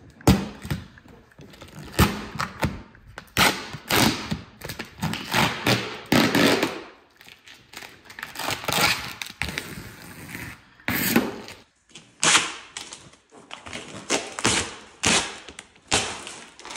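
Green vinyl wrap being peeled off a Toyota Supra's painted body panels: irregular ripping and crackling as the film pulls away from the paint, in pull after pull with short pauses between.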